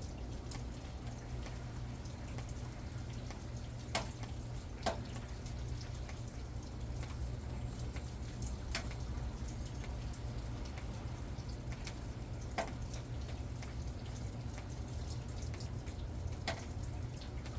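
Occasional water drops tapping, a handful of sharp, separate ticks spaced seconds apart, over a steady low rumble.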